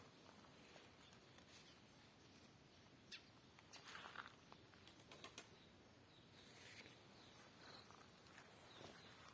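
Near silence: faint outdoor background hiss, with a few soft rustles and clicks a little past the middle.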